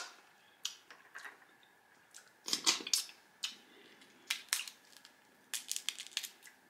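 Crab leg shells cracking and snapping as they are broken apart by hand: scattered sharp cracks, with a quicker run of them near the end.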